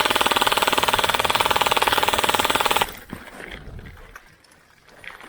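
Airsoft electric gun firing one long full-auto burst, a fast even rattle that cuts off suddenly about three seconds in.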